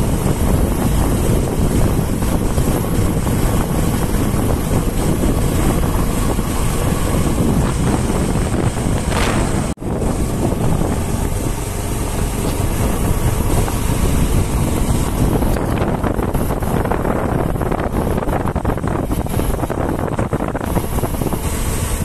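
Riding on a motorcycle: wind rushing over the microphone, with the bike's engine running underneath. The sound drops out for an instant about ten seconds in.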